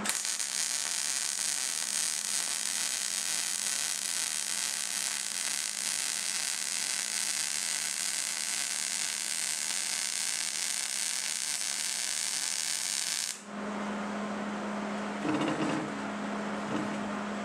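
MIG welder's arc laying a bead on the 1/8-inch-wall steel tube, sealing the lead inside: a steady crackling buzz that cuts off suddenly about thirteen seconds in.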